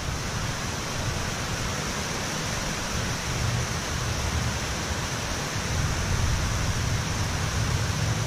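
Steady rushing of water pouring through a hydroelectric dam's gates, an even hiss of white water that swells slightly over the last couple of seconds.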